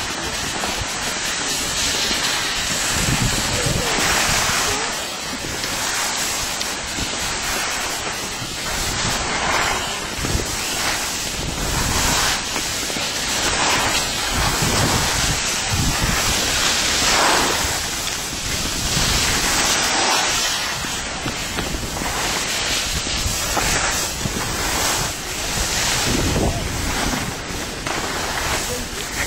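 Rushing noise of skiing downhill: wind buffeting the microphone and skis sliding and scraping over packed snow, swelling and easing every second or two.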